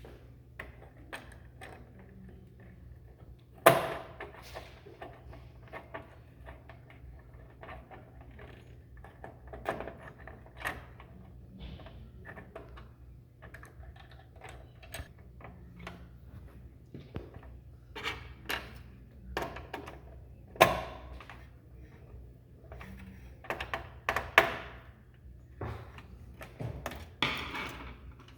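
Scattered clicks and knocks of hard computer parts being handled as a CPU heat sink is fitted onto the motherboard, with sharp loud clicks about 4 s and 21 s in, over a low steady hum.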